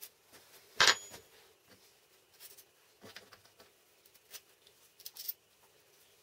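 Small metal hardware handled on a wooden workbench: a sharp clack with a short metallic ring just under a second in as a small wrench is set down, then scattered light clicks and taps of bolts, washers and wooden knobs being fitted by hand.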